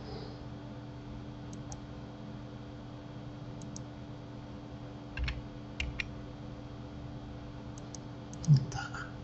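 Scattered clicks of computer keyboard keys and a mouse, a few at a time, over a steady low hum. Near the end comes a brief low vocal sound, the loudest thing here.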